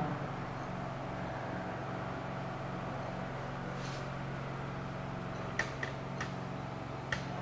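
Steady low machine hum in a small room, with a few faint short ticks and squeaks of a marker on a whiteboard in the second half.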